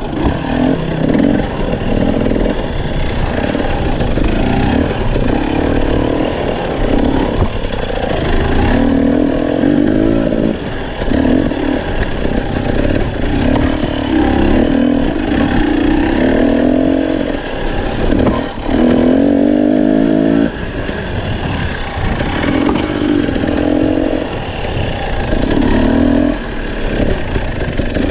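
Husqvarna TE250i two-stroke dirt bike engine heard from on board, revving up and dropping back again and again as the throttle is worked over rocky trail.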